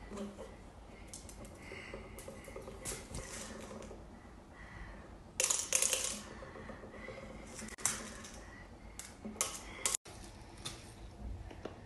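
Uncooked rice being dropped by hand into an empty plastic bottle: grains clicking and rattling against the plastic in scattered light ticks, with a denser rattle about halfway through.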